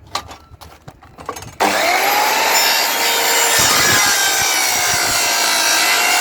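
A few light clicks and knocks, then about a second and a half in a corded electric saw starts abruptly and runs loud and steady, its motor whine rising briefly as it spins up while it cuts into pallet wood.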